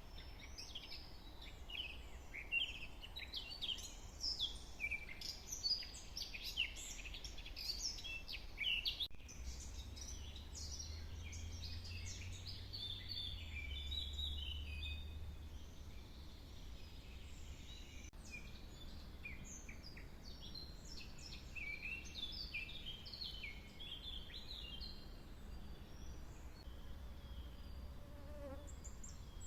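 Small woodland birds chirping and twittering in quick, high runs of notes. A low hum underneath swells for a few seconds around the middle.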